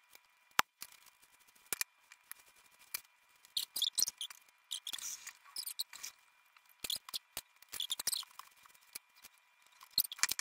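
A comb and fingers working through a child's hair: scattered sharp clicks and short crackly rustles, busiest through the middle.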